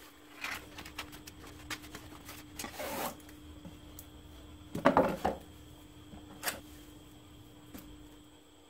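Cardboard firework box being opened by hand and its cardboard tube slid out: rubbing and scraping of cardboard with small knocks, the loudest burst about five seconds in. A faint steady hum sits underneath.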